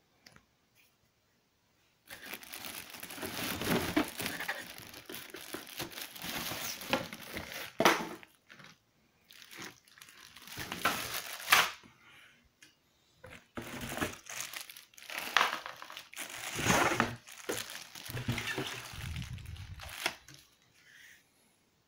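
Clear plastic bags around the parts of a table fan crinkling and rustling as the parts are pulled out of their cardboard box, with some cardboard scraping. It starts about two seconds in and comes in several bouts with short pauses.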